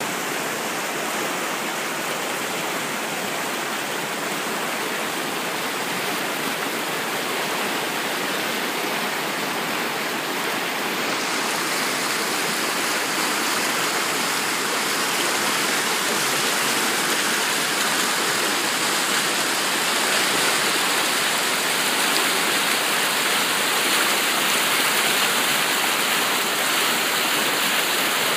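Flooded creek in spate, with brown floodwater rushing over rocks in whitewater rapids: a steady rush of water that grows a little louder over the second half.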